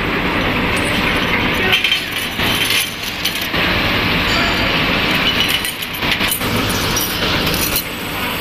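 Automatic microscope-slide loading and washing machine running steadily, with glass slides clinking lightly and often as they are moved through it.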